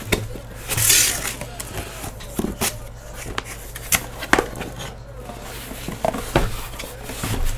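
A cardboard case of trading-card boxes being handled and opened: scraping and rustling, a short tearing rustle about a second in, and several sharp clicks and knocks, over a steady low hum.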